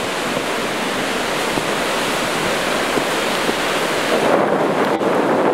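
Surf breaking on a sandy beach: a steady, loud wash of waves, swelling a little near the end.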